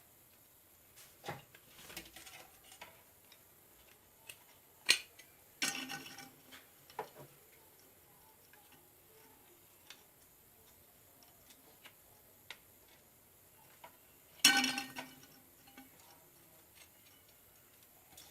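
Scattered clicks and clinks of small metal parts being handled as a mixer grinder's motor is reassembled, with louder knocks that ring briefly about five and fourteen seconds in.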